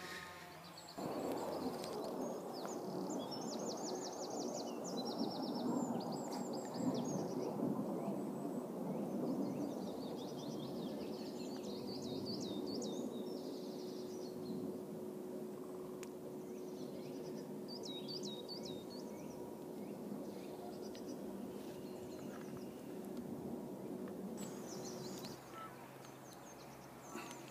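Woodland songbirds singing in short twittering phrases over a steady low rushing noise with a faint hum, which starts abruptly about a second in and stops abruptly near the end.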